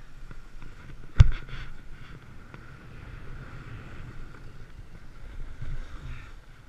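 Snowboard sliding and scraping over snow, with wind on the microphone, and one sharp thump about a second in.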